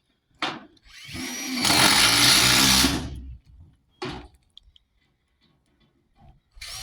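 A handheld power tool runs in a burst of about two seconds, rising in pitch as it spins up and then running loud. A short click comes about four seconds in, and the tool starts again near the end.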